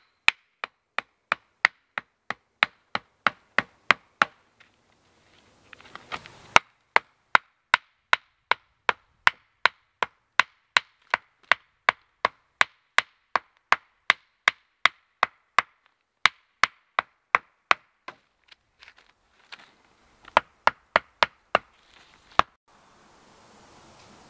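Wooden stakes being driven into the ground with a wooden club: sharp, evenly spaced knocks of wood on wood, about two to three a second, in three runs with short pauses between.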